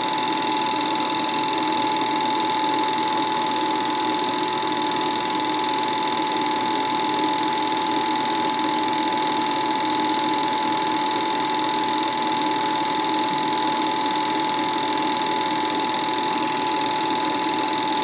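Home-movie film projector running: a steady mechanical whir with several constant tones.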